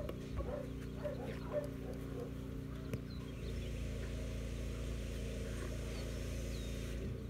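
Puppy growling as it grips and tugs on a rag bite article, over a steady low drone.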